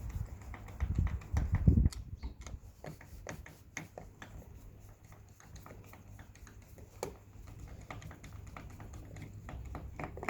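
Screwdriver undoing the screw on a uPVC door hinge cap: a run of small irregular metal clicks and scrapes, with a few low bumps in the first two seconds.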